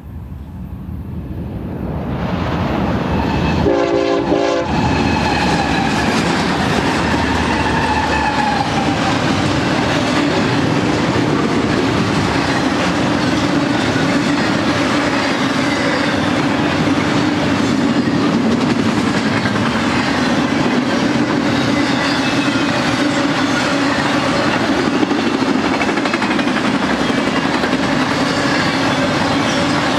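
BNSF GE ES44C4 diesel locomotives approach and pass, the sound building over the first few seconds, with one short horn blast about four seconds in. Then a long intermodal train of double-stack container cars and trailer flatcars rolls steadily past, its wheels clattering on the rails.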